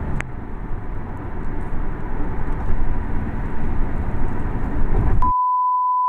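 Steady road and engine rumble inside a moving car. About five seconds in it cuts abruptly to a steady, high-pitched test-tone beep of the kind that accompanies TV colour bars.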